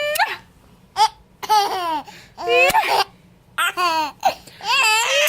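A 7-month-old baby laughing in a series of short high-pitched bursts about a second apart, some opening with a sharp hiccup.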